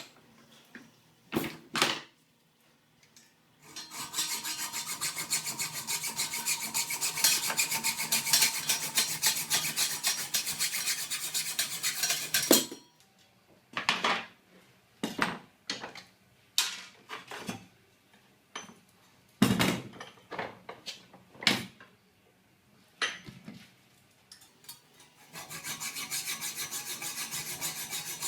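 A saw cutting through the protruding ends of 6 mm steel roofing bolts: sawing for about nine seconds, then a run of separate knocks and clicks, then sawing starts again near the end.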